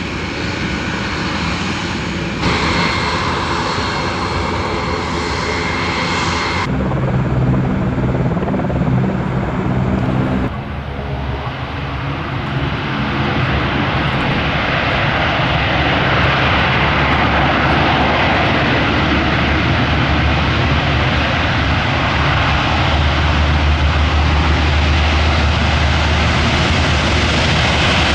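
Military four-engine turboprop transport's engines and propellers running, in several cut-together shots; from about twelve seconds in the sound builds and stays loud.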